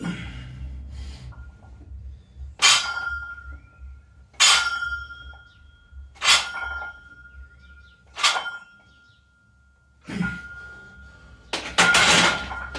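An 80 kg loaded barbell clanking with each bench press rep, about every two seconds, a metallic ringing tone lingering after each clank. It ends in a longer, louder clatter of metal as the bar is racked.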